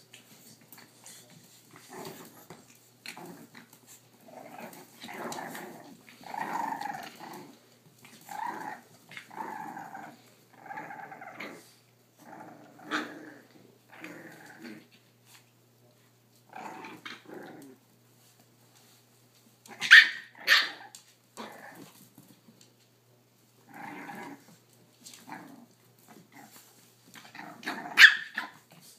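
Boston Terriers play-growling, a run of short rough growls one after another, with a few sharp, louder barks about two-thirds of the way in and again near the end.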